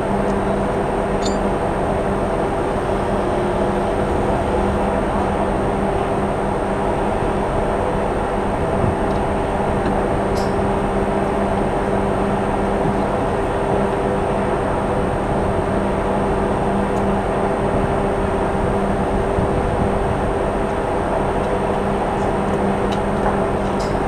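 Ship's machinery running with a steady, even drone and a constant low hum.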